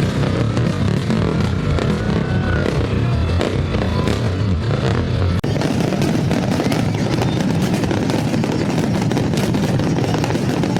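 Fireworks crackling and banging in a dense, continuous noise, with music from the event running underneath. The sound breaks off and changes abruptly about five seconds in.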